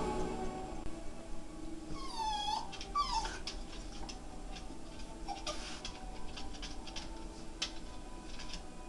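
Jack Russell terrier whining: two short high-pitched whimpers that dip and rise in pitch about two and three seconds in, followed by scattered faint clicks.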